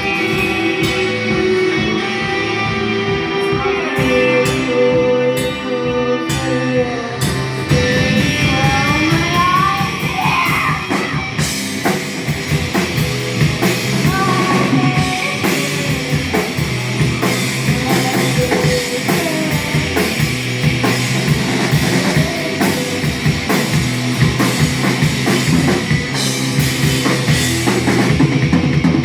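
Rock music with guitar, a drum kit and singing; the sound grows fuller and denser about seven and a half seconds in.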